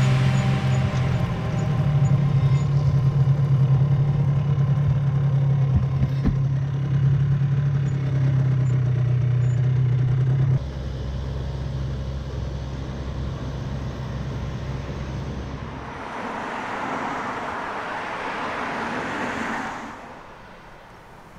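The 1991 Yamaha TZR125's single-cylinder two-stroke engine idling steadily, dropping in level about ten seconds in and gone about sixteen seconds in. A rushing noise then swells for a few seconds and fades.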